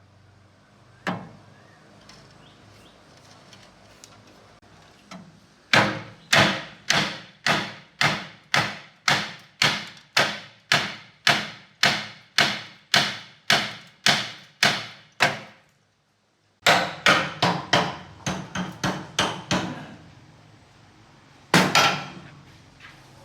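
Hammer blows, most likely on wood while repairing a handcart. A single knock comes first, then a long, steady run of strikes at about two a second. After a short break comes a faster, uneven flurry, and a last couple of blows near the end.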